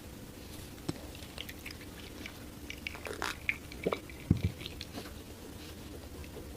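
Close-miked chewing and biting of food: a string of short wet clicks and crunches, busiest in the middle, over a faint steady hum.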